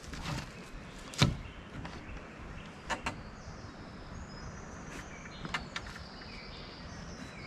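A sharp knock about a second in, a second, lighter knock near three seconds, and a few faint clicks later, over a steady low background noise.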